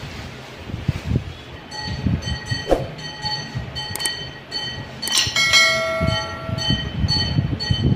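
Steel starter-clutch parts and the magneto rotor being handled and fitted together by hand, with light knocks and clinks, over a background of ringing tones. About five seconds in there is a sharp click and then a bell-like chime that dies away over about a second.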